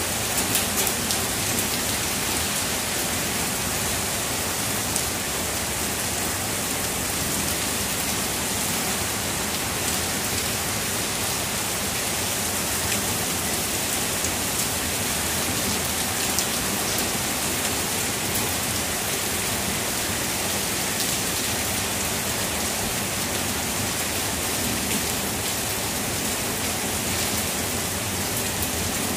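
Heavy rain falling steadily, an even hiss with a few sharper drop hits in the first second or so.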